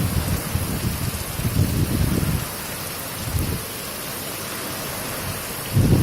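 Heavy rain falling, a steady hiss, with low rumbling surges through roughly the first half that then settle to the even rain sound.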